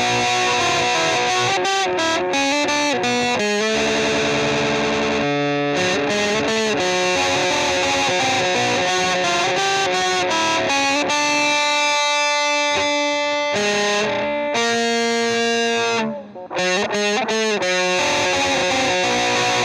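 Instrumental music led by distorted, effects-laden electric guitar playing sustained chords, with a brief sharp drop-out about sixteen seconds in.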